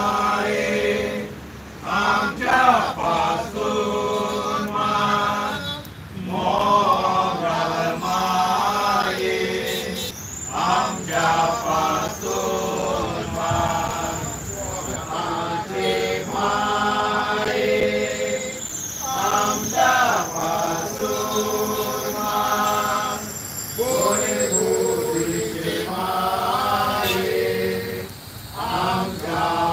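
A group of voices chanting a prayer together in unison, unaccompanied, in phrases with short breaks between them.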